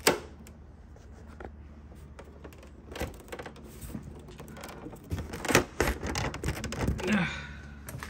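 Hard plastic housing panels of a window air conditioner clicking and knocking as they are handled and pushed into place: a sharp click at the start, then scattered smaller clicks and knocks.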